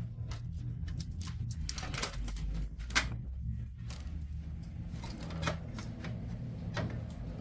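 Irregular clicks and rattles of parts being handled inside a Canon imageRUNNER 2022 copier during main board installation, with one sharper click about three seconds in, over a steady low hum.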